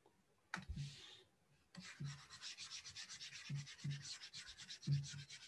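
Faint stylus scrubbing on a pen tablet while erasing handwriting: one short scrape about half a second in, then from about two seconds in a rapid back-and-forth rubbing of about nine strokes a second.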